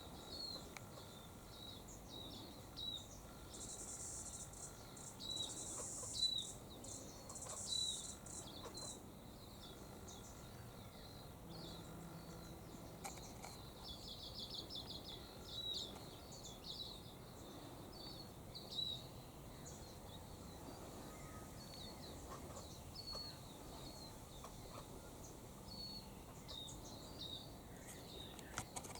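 Faint outdoor birdsong: short high chirps repeated every second or so throughout, with a quick trill about halfway through. A few short high hissing bursts come a few seconds in.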